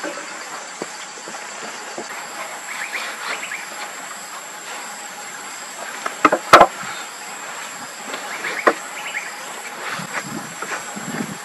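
Wooden poles and log pieces knocking together as they are handled and laid on the ground: a few scattered wooden knocks, the loudest a quick double knock a little past the middle, over a steady high hiss.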